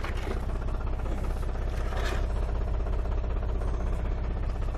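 Tractor's diesel engine idling steadily with an even low pulse, running the hydraulics of a mounted hoe machine; a brief noise sounds about two seconds in.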